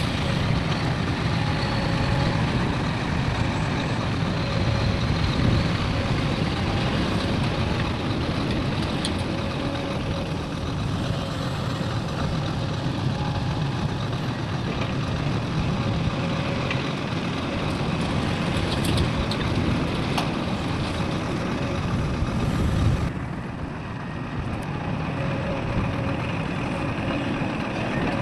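Heavy diesel engines of trucks and earthmoving machinery running steadily, a dense low rumble. Near the end the sound drops slightly and changes.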